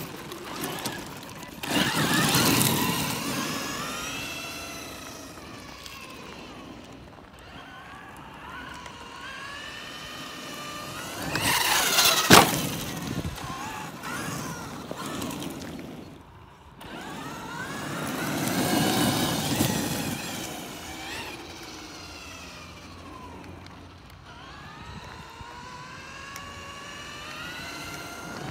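Electric RC monster truck's motor and gears whining, rising and falling in pitch in three main bursts as it speeds up and slows across gravel, with tyre noise under it. There is a sharp knock about twelve seconds in.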